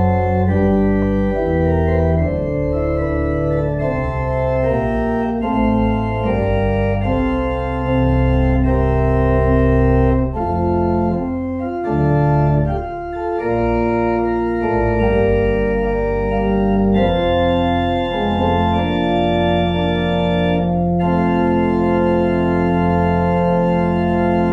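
Organ playing slow, held chords over a steady deep bass: the closing postlude of a worship service.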